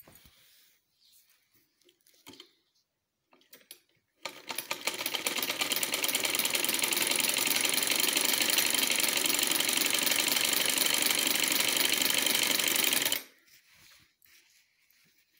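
Domestic sewing machine stitching a seam through layered cotton: it starts about four seconds in, picks up speed to a steady rapid ticking, runs for about nine seconds and stops abruptly. Faint clicks of fabric handling come before and after.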